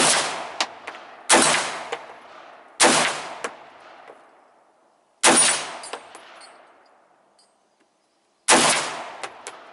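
Five rifle shots at irregular spacing, each followed by a short fading echo, fired at a steel gong target; fainter sharp clicks trail some of the shots.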